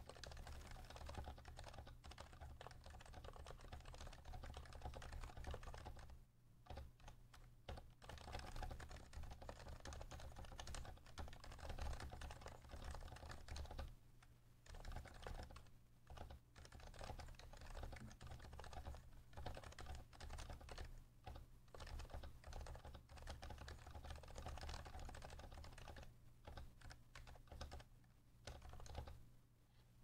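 Stock HHKB Hybrid Type-S keyboard being typed on steadily, its silenced Topre key switches giving soft, muffled keystrokes. The typing breaks off briefly about six and fourteen seconds in and stops near the end.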